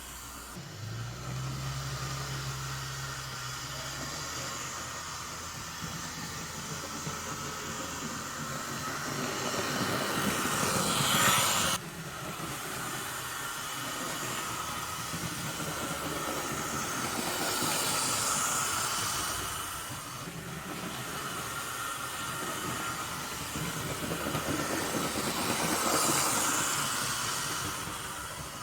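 Hornby OO-gauge model steam locomotive running on track, its motor and wheels making a steady whirr that swells and fades as it laps past. It runs smoothly after the repair, with no clicking heard.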